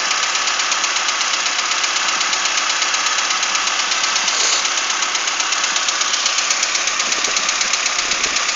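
Carburetted ZMZ-406 inline-four engine running with a steady, rapid knock. The owner suspects the hydraulic valve lash adjusters are making it.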